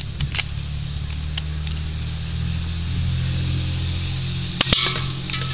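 Steady low engine hum of a vehicle, growing louder through the middle. About four and a half seconds in, two sharp cracks in quick succession: an airsoft gun firing and the BB hitting the aluminium soda can.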